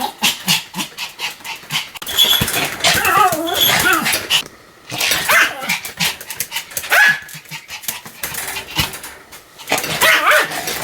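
Pomeranian barking over and over in quick, sharp barks, with a brief pause a little before halfway before the barking starts again.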